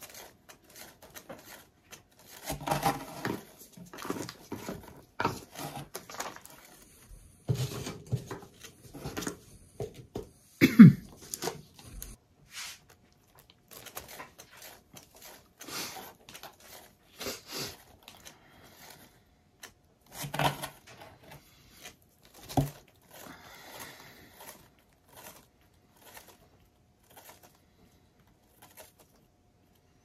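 Irregular knocks, rubs and rattles from a paint-covered vinyl record being spun out on a spinner. The loudest knock comes about eleven seconds in.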